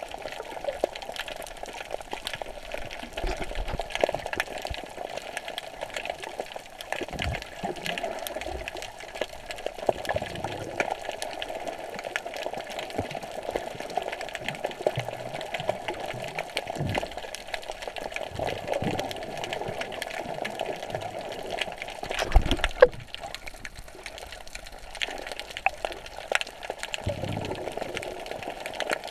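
Underwater sound of snorkelling, heard with the microphone below the surface: a steady muffled water rush with many scattered small clicks and occasional low thumps. The loudest is a knock about three-quarters of the way through.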